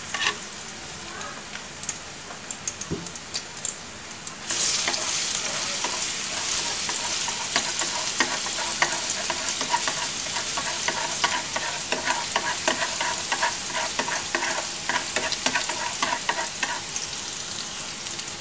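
Minced garlic frying in hot oil in an aluminium wok, stirred so that a utensil clicks against the pan. The sizzle jumps sharply louder about four and a half seconds in and stays loud. This is the garlic being fried until golden and fragrant, the step before the beef goes in.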